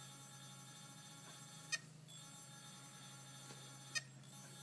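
Opened hard disk drive powered up, its motor giving a faint steady electronic whine, broken by a sharp click about every two seconds (twice here), each followed by a brief dip. The drive's platter had been locked up, and it is trying to spin up again.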